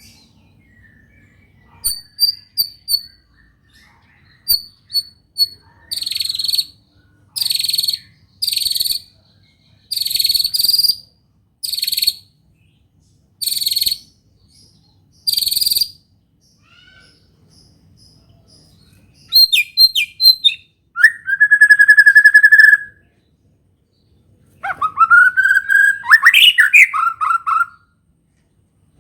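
White-rumped shama singing a song that has learned canary phrases: a string of short, sharp, high note bursts about once a second, then after a pause fast trills, a long steady whistle and a rising, warbling phrase near the end.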